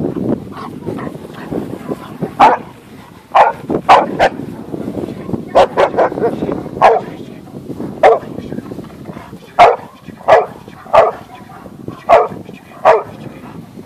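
A deaf white boxer barking repeatedly at a helper hidden behind a training blind, the bark and hold of protection-sport blind work. The barks come about one a second, some in quick pairs, from about two seconds in.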